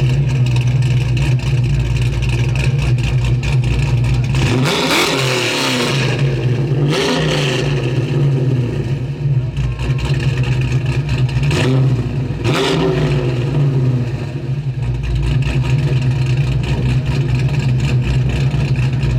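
A 1962 Ford Thunderbird's V8 engine idles steadily and is revved in several short blips, about five, seven, eleven and twelve seconds in.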